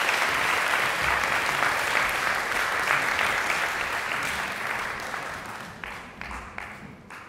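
Audience applauding, the applause thinning and dying away over the last couple of seconds into a few scattered claps.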